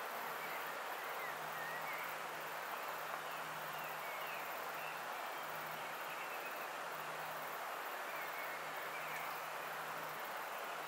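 Steady outdoor background hiss with a faint low hum, and a few faint, scattered bird chirps.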